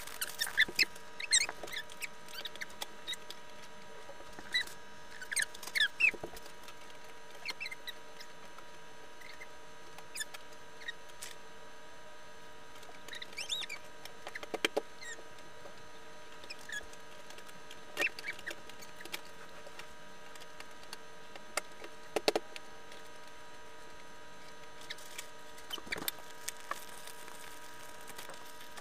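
A toy set's packaging being opened and handled: scattered rustles, scrapes, clicks and short squeaks at irregular intervals, over a faint steady hum.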